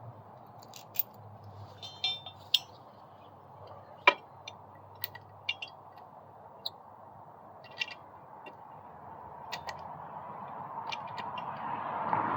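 Irregular metal clinks and clicks of hand tools and parts being handled, with one sharper knock about four seconds in, over a faint steady hum. A rising rush of noise builds near the end.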